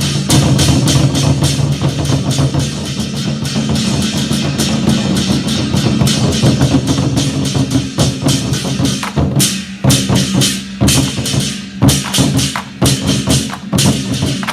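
Chinese war drums (zhangu) played in a loud, fast, dense roll, which from about nine seconds in breaks into separate, spaced, accented strokes.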